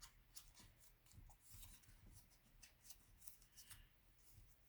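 Faint crinkling and crackling of a paper sheet being handled and folded as its creases are reversed, a scatter of small quick crackles.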